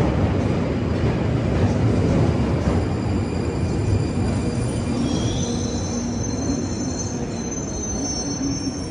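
Alstom-built 1995 Stock London Underground train running into the platform and slowing, its low rumble easing. About five seconds in, a high, slightly rising squeal joins as it comes nearly to a stop.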